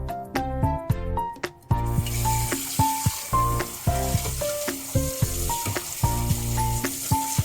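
Background music: a light melody of short notes over a recurring bass. A steady crackling hiss joins about two seconds in and continues under it.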